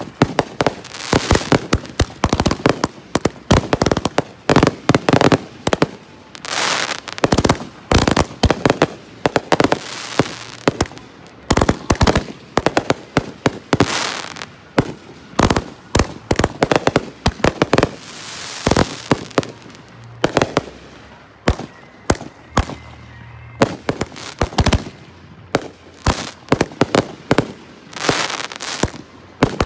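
Fireworks going off in quick, irregular succession: many sharp bangs of aerial bursts, with stretches of dense crackling from crackling stars.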